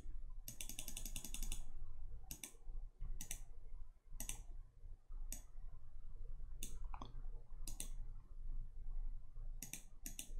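Computer mouse clicking: several short bursts of rapid ticks, the longest about half a second in and lasting about a second, over a faint low hum.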